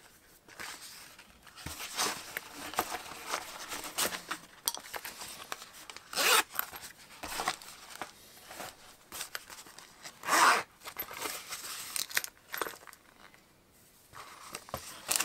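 Unpacking noises: irregular rustling and scraping as a cloth pipe pouch and its packaging are handled, with two louder rustles about six and ten seconds in.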